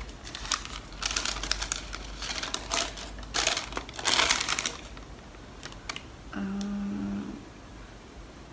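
Paper crinkling and rustling as receipts and a long sheet of white paper are handled and unfolded, in a run of crackles that is loudest about four seconds in.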